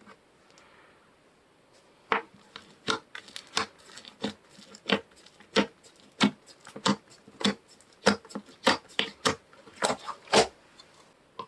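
Slime being pressed and stretched by hand, making sticky, crisp clicks and pops about one or two a second, starting about two seconds in.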